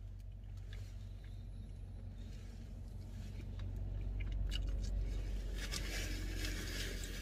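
A paper napkin crinkling at the mouth from about four seconds in, after a few small clicks and mouth noises as fish bones are picked out, over a steady low hum.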